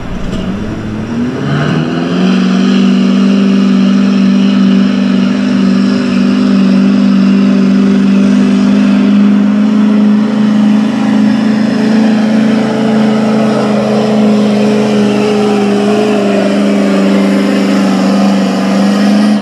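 Street diesel class pulling truck's diesel engine under full load during a pull, its revs climbing over the first two seconds and then held high and steady.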